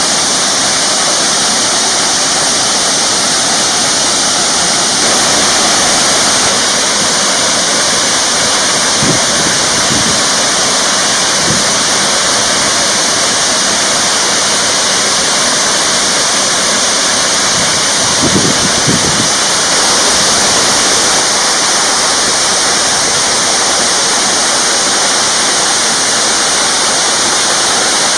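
Waterfall rushing steadily, a dense continuous roar of falling water.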